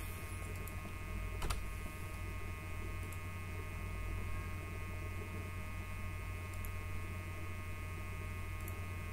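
Steady electrical mains hum with a stack of higher whining overtones. A single sharp mouse click sounds about one and a half seconds in, with a couple of fainter clicks later.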